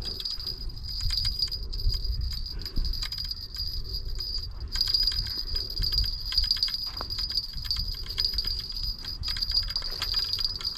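Fishing reel being cranked in fast ticking as a hooked striped bass is fought to shore, the ticking stopping for a moment just before halfway, with wind rumbling on the microphone.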